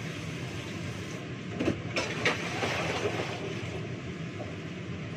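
Washing up at a kitchen sink: a few clinks of dishes and utensils about two seconds in, with a spell of water splashing, over a steady low hum.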